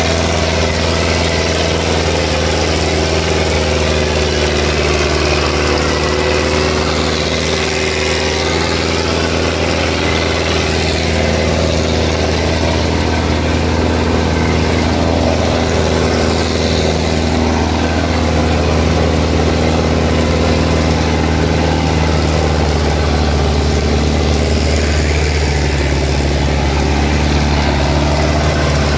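Sonalika DI 750 III tractor's diesel engine running steadily under heavy load, pulling a disc harrow through soft soil.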